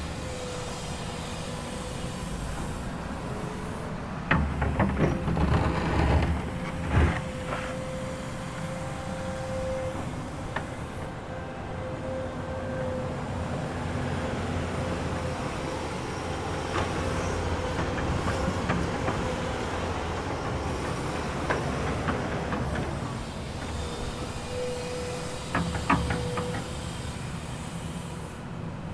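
Komatsu excavator at work: the diesel engine runs steadily with a low rumble, under a thin steady whine that comes and goes. Metal clanks and knocks cluster about four to seven seconds in and again near the end.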